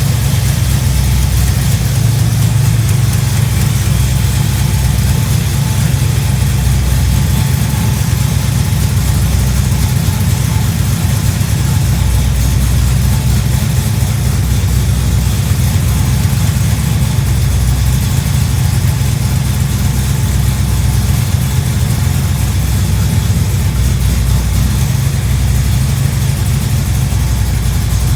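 440 V8 engine idling steadily just after start-up, with lifter noise, a tapping from the valve lifters heard at start-up.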